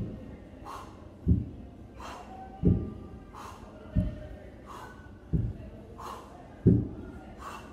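Hex dumbbells set down on a carpeted floor in turn during renegade rows, a dull thud about every 1.3 seconds, each followed by a short, sharp exhale.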